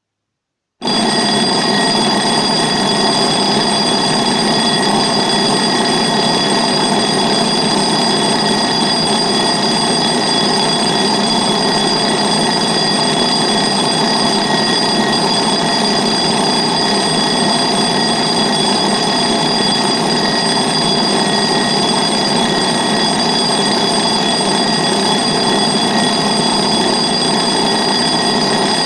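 Retro analogue table clock's alarm ringing continuously, a steady, unbroken bright ring that starts abruptly just under a second in.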